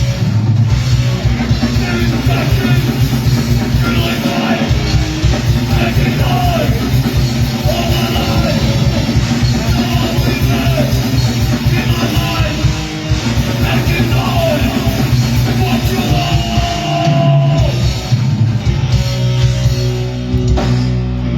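Punk crossover thrash band playing live: loud distorted guitars, bass and drum kit. Near the end the full band drops away.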